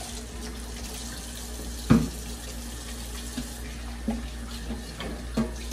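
Kitchen sink tap running as hands are washed under it. One sharp knock about two seconds in, and a few lighter knocks later.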